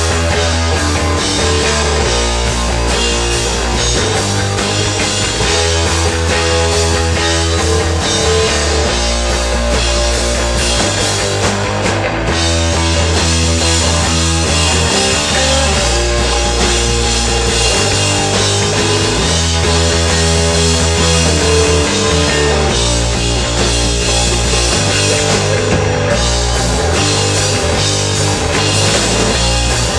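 Rock band playing live: guitar, bass and drum kit, with the bass line moving to a new note every couple of seconds.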